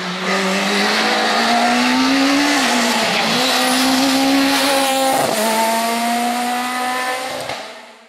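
Rally car engine run hard through a bend and toward the listener, its pitch climbing and dropping sharply at each gear change, three times in all. The sound fades out near the end.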